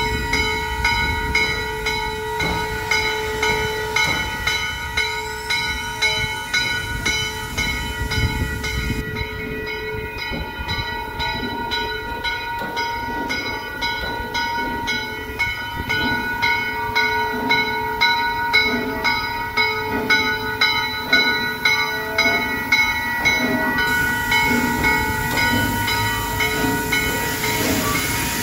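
2-6-6-2 steam locomotive standing with steam hissing. A regular pulse comes about once a second over several steady whining tones.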